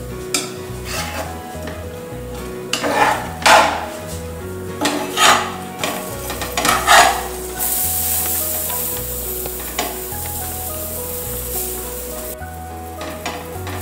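Metal spatula stirring and scraping thick pav bhaji in a nonstick pan, several strokes about three to seven seconds in, followed by a steady frying sizzle for about five seconds. Soft background music plays underneath.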